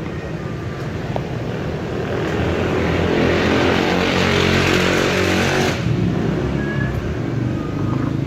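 A motor vehicle engine running close by. It grows louder from about two seconds in under a rising rush of noise, and the rush cuts off abruptly near six seconds in.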